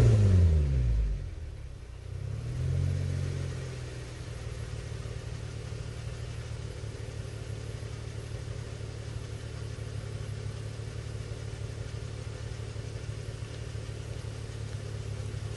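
Holden Commodore VX's 3.8-litre Ecotec V6 running through headers and a 2.5-inch sports exhaust with a high-flow cat and muffler. Its revs fall away after a blip, dip and pick up briefly about two to three seconds in, then settle into a steady idle.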